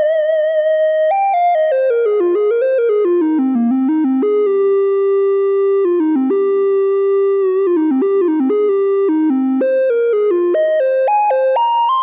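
Sequential Trigon 6 synthesizer playing its 'Mini Flute' preset: a melody played one note at a time. The line steps down into a lower range after about a second, then climbs in quick steps near the end.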